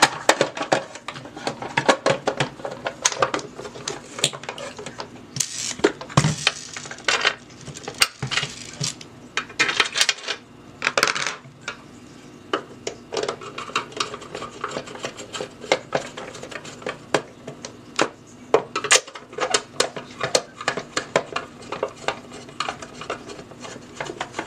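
Plastic housing of an old electric can opener being handled and fitted back together: irregular clicks, knocks and rattles of hard plastic parts.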